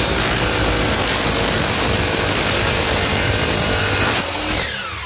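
DeWalt sliding compound miter saw running and cutting through wood. About four seconds in the cut ends and the motor winds down with a falling whine.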